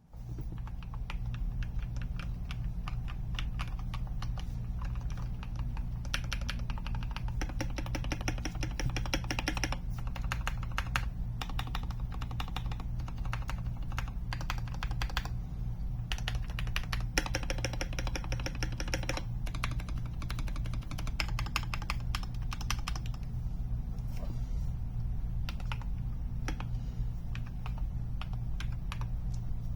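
Typing on a TM680 mechanical keyboard with Tecsee Ruby switches lubed with Krytox 205G0, Akko Wave keycaps, case foam and a four-layer tape mod: a steady stream of keystrokes, with two spells of faster typing in the first and second thirds. A steady low hum runs underneath.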